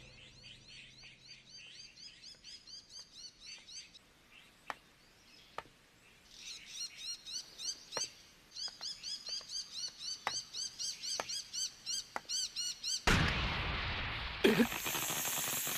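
Small birds chirping over and over in quick arched calls, with a few sharp clicks among them. About thirteen seconds in, a loud rushing hiss cuts in suddenly and carries on to the end.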